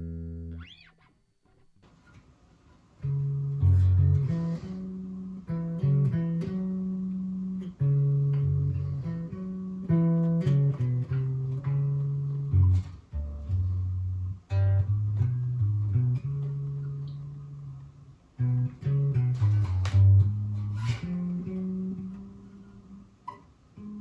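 Samick Greg Fairlane electric bass with two single-coil pickups, played through an amp: after about three seconds of near quiet, a line of single plucked notes moving up and down in the low register, ending on a held note. Later in the line it is picked up by a microphone in the room rather than taken direct from the amp.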